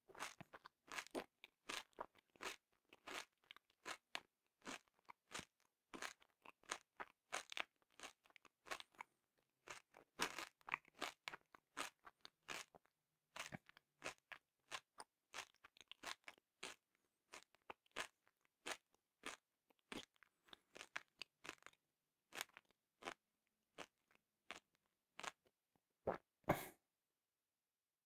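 M&M's candies being chewed close to the microphone: a rapid, irregular string of sharp crunches as the candy shells break between the teeth. The crunching stops near the end.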